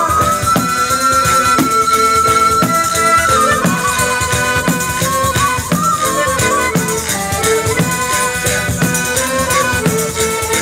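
Live southern Italian folk music: a tamburello, a frame drum with jingles, beats a steady rhythm under a high wind-instrument melody of long held notes, with guitar and accordion.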